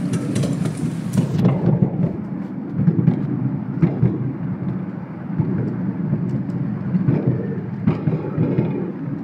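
Miniature railway carriages running along the track, heard from on board: a steady rumble of the wheels on the rails with occasional sharp clicks and knocks. A high hiss drops away about a second and a half in.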